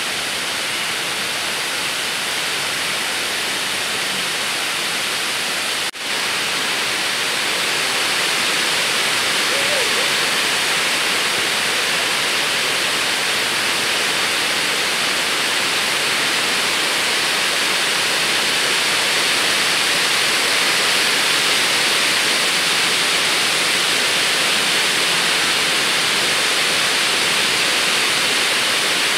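Steady rushing hiss with no pitch or rhythm, dropping briefly about six seconds in.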